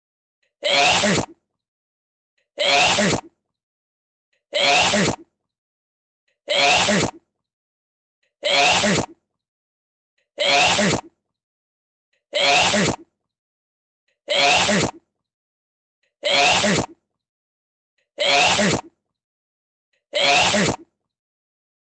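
A person sneezing: one short sneeze about every two seconds, eleven times, each one looking the same, as if a single sneeze is repeated in a loop.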